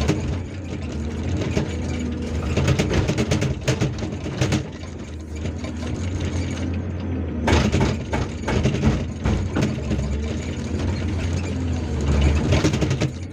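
Hydraulic breaker on a Hyundai R480LC-9S excavator hammering on rock in several bursts of rapid knocks, heard from inside the cab over the steady running of the excavator's diesel engine.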